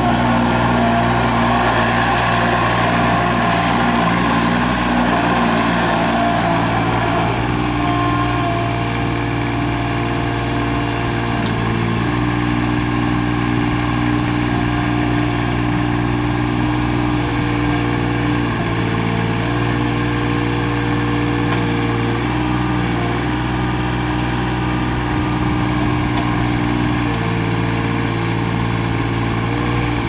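New Holland LS125 skid steer loader running and maneuvering, its engine holding a steady pitch under a whine that steps up and down in pitch several times as it drives and works the bucket.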